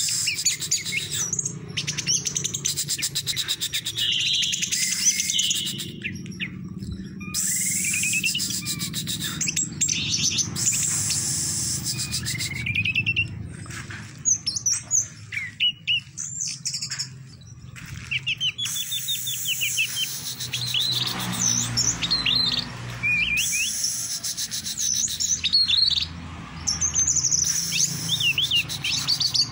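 Orange-headed thrush (anis merah) singing a long run of varied phrases of quick sliding whistles and trills, broken by short pauses, in the 'teler doyong' song style prized by Indonesian bird keepers.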